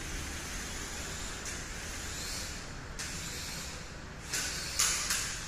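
Small HX750 toy quadcopter drone in flight, its propellers giving a steady high hiss. Near the end come three brief, louder rushes of noise.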